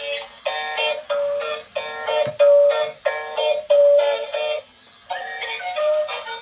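Electronic toy tune from a battery-powered dancing toy's small speaker: a quick melody of short synthesized notes with a voice-like lead, and no bass. The music breaks off briefly a little before five seconds in, then resumes.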